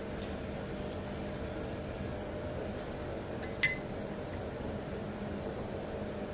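A single sharp clink with a brief ring about three and a half seconds in, like hard kitchenware knocking together, over a steady low hum.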